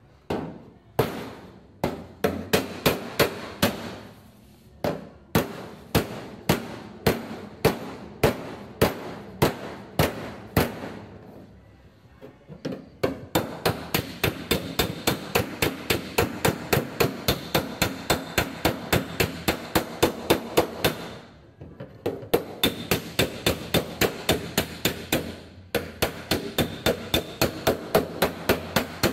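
Body hammer planishing a welded seam in a Holden Torana's steel rear quarter panel against a dolly pushed firmly behind it, in runs of sharp metallic blows broken by short pauses. The blows come about two a second at first and about three a second later. The hammering flattens the weld to stretch the steel back out against the shrinkage of the heat-affected zone.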